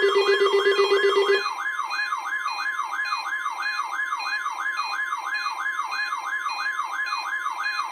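Weather-radio alert alarm: a siren-like warble sweeping up and down about four times a second over a steady tone near 1 kHz, the 1050 Hz NOAA Weather Radio alert tone. A lower pulsing beep stops about a second and a half in. The sounds signal an incoming alert broadcast.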